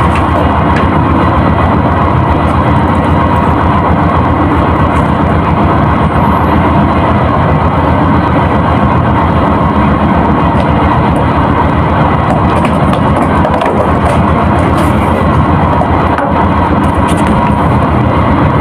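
Steady, loud drone of a ship's engine machinery with a fast, even throb, unchanging throughout.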